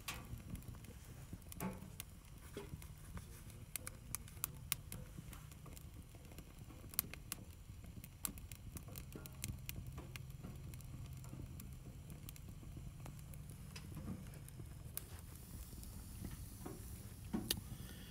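Small wood fire in a sheet-metal backpacking tent stove, burning with the door open and drafting well: faint, irregular crackling with scattered sharp pops over a low steady rumble.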